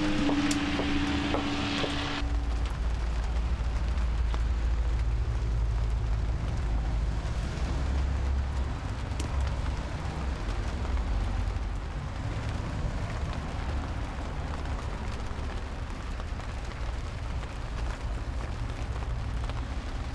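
Steady low outdoor rumble with a faint hiss over it, the ambience of a wind-exposed scrapyard. In the first two seconds a wet hiss and a held low tone are heard, and they stop at once.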